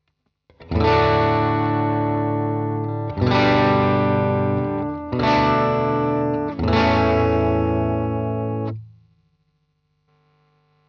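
Electric guitar with a P90 bridge pickup played through a DigiTech Bad Monkey overdrive pedal: four overdriven chords, each struck and left to ring for about two seconds, then muted near the end.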